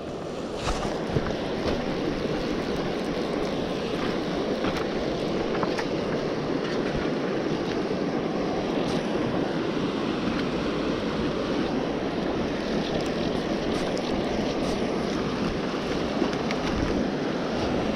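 Fast river water rushing over a rocky riffle: a steady, even rush, with a few faint clicks.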